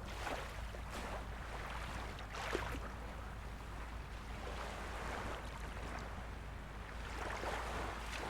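Sea waves washing onto the shore in repeated swells every second or two, over a steady low rumble.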